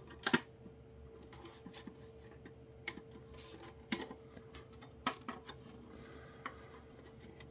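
Scattered sharp plastic clicks and taps as the snap-together housing of a Netgear WNR2000 router is pried at its tabs, the loudest just after the start, over a faint steady hum.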